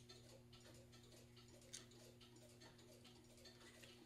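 Near silence: a faint steady hum with a couple of faint ticks.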